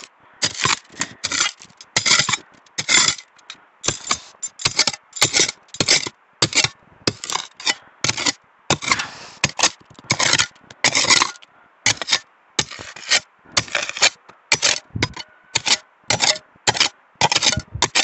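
A hand digging tool scraping and chopping into stony, gravelly soil, about two strokes a second, with small stones grating against the blade.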